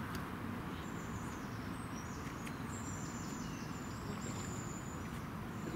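Steady outdoor background noise, a low rumble, with several short high-pitched insect chirps through it.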